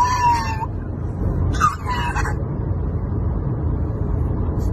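Pug howling: one drawn-out, slightly falling howl at the start and a shorter one about two seconds in, over the steady low rumble of the moving car's cabin.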